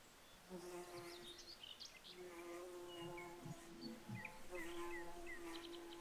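A flying insect buzzing close by, a steady pitched drone that starts about half a second in and breaks off and returns twice as it moves about. Short high bird chirps are scattered over it.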